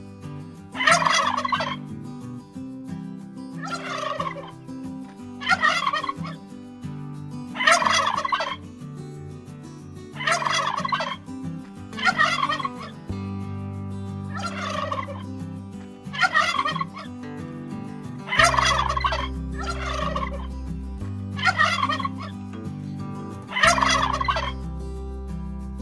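Domestic tom turkey gobbling over and over, one gobble about every two seconds.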